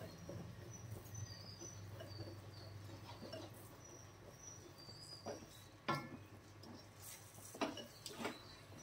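Wooden spatula stirring and scraping thick wheat halwa in a heavy brass kadai, with a few sharp knocks of the spatula against the pan, one about six seconds in and two near the end. Faint short high chirps and a low steady hum sit underneath.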